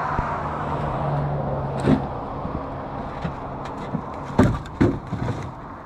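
A vehicle engine idling steadily, with a few sharp knocks on top, the loudest two close together about four and a half seconds in.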